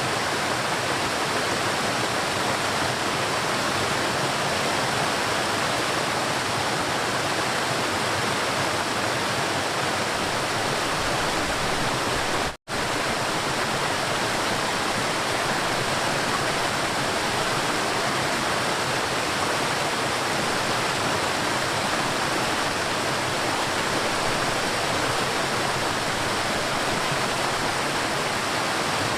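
River water rushing and flowing in a steady, even wash of noise. It drops out to silence for a split second about halfway through, then carries on unchanged.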